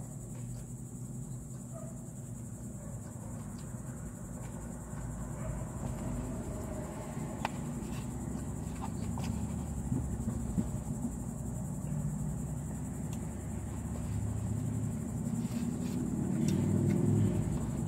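Steady high-pitched drone of insects over the low rumble of a car, heard from inside the cabin; the rumble grows louder near the end. A few faint clicks come from eating.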